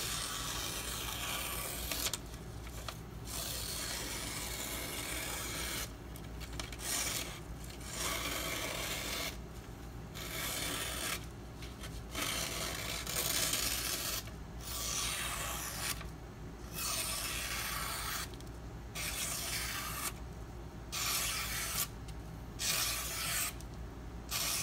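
The steel blade of a Spyderco Paramilitary 2 knife (52100 steel) drawn in repeated rasping strokes, about a dozen of them, each one to two seconds long with short pauses between.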